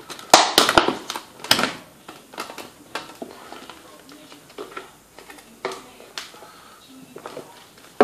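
Handling noise: a quick run of loud clicks and knocks in the first second and a half, then scattered lighter taps and rustles.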